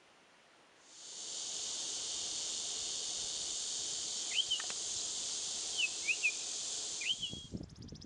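A steady, high, hissing insect chorus, with a few short bird chirps over it. It comes in about a second in and breaks off shortly before the end.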